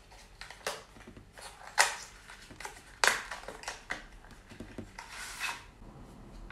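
Thin cardboard packaging being handled and opened: a few sharp scrapes and snaps as the end flap of a slim card box is pulled open, the loudest about three seconds in. A longer rustle follows a little after five seconds, as a sheet-mask sachet slides out.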